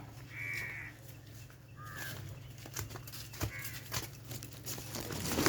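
Bird calling in three harsh, short calls: the longest about half a second in, one around two seconds, and a fainter one past three and a half seconds. A steady low hum and scattered clicks run under the calls, and a loud rumble of noise rises at the very end.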